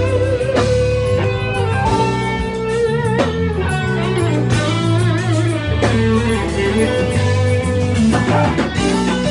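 Live band playing an instrumental break in a slow southern soul/blues song, electric guitar bending notes over bass and drums.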